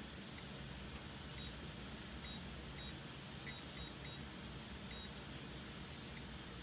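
Faint, short high-pitched electronic beeps, about seven of them at irregular spacing, over a steady low hum and hiss.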